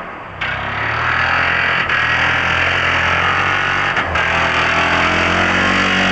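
Two-stroke engine of a KTM 300 XC-W enduro dirt bike running hard under throttle as the bike rides toward the listener, growing fuller near the end.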